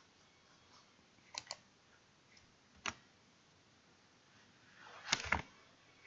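Computer mouse clicks: a quick double click about a second and a half in, a single click near three seconds, and a louder cluster of short knocks around five seconds, with near silence between.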